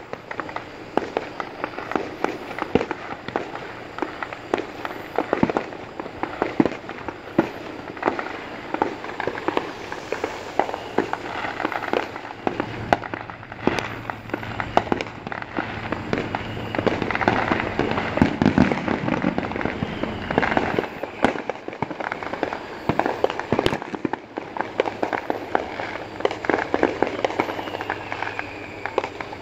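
Fireworks going off: many sharp pops and cracks in quick, irregular succession, overlapping one another.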